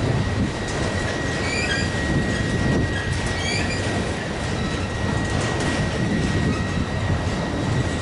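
Freight train of enclosed autorack cars rolling past at close range, its steel wheels rumbling on the rail. A steady high-pitched wheel squeal runs throughout, with short higher squeaks from the wheels now and then.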